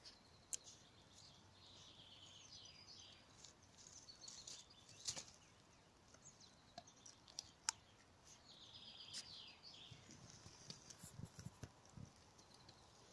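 Faint songbird song outdoors, with two short runs of descending trilled phrases, and a few sharp clicks of a large dog chewing a thin twig.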